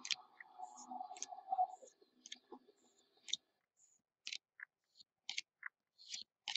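Trading cards being handled and flipped through: short, crisp clicks and papery snaps, about one to two a second, after a faint murmur in the first two seconds.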